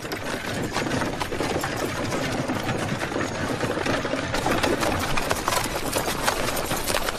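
Horse-drawn wooden wagon clattering and rattling along a dirt road, with the horses' hooves plodding: a steady, dense clatter of many small knocks.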